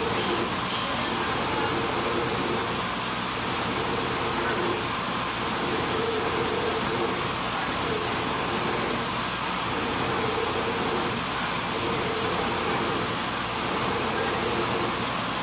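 Vertical milling machine running steadily, its cutter milling the helical groove of a metal traverse shaft under hand feed.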